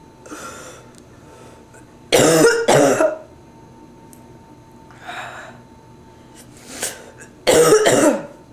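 Person with bronchitis coughing in two harsh fits of about two coughs each, one about two seconds in and one near the end, with breaths drawn in between.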